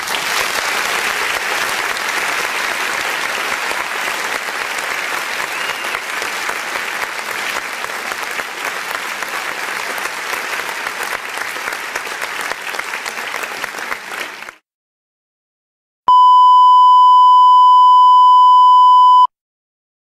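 Applause for about fourteen seconds, cutting off abruptly. After a short silence comes a steady, loud single-pitch beep lasting about three seconds, the classic censor bleep tone.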